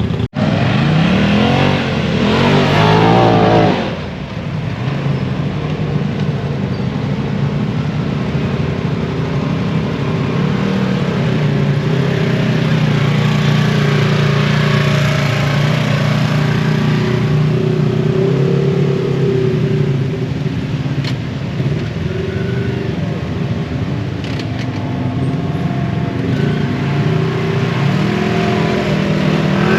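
Off-road vehicle engine revving up in rising sweeps for the first few seconds, then running under steady load, its pitch rising and falling a little.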